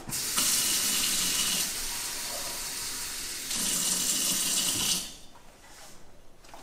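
Water running from a kitchen faucet into a drinking glass. It is louder at first and again near the end, softer in between, and is shut off about five seconds in.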